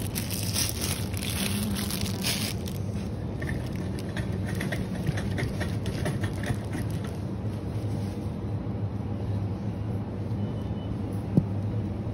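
Supermarket ambience: steady low hum of open refrigerated display cases, with rustling handling noise in the first few seconds and a single sharp click near the end.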